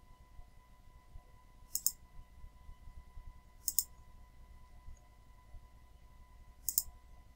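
Computer mouse button clicked three times a couple of seconds apart, each click a quick double tick of press and release. Under it is a faint steady electrical hum.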